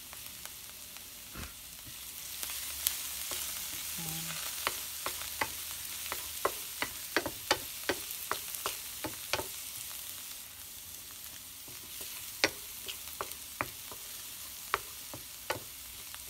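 Garlic sautéing in hot oil in a frying pan: a steady sizzle that swells about two seconds in, with many sharp pops and clicks through it.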